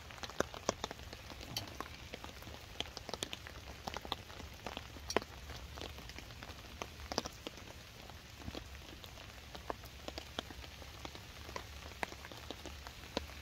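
Rain falling, with single drops landing as scattered, irregular sharp ticks over a faint steady hiss.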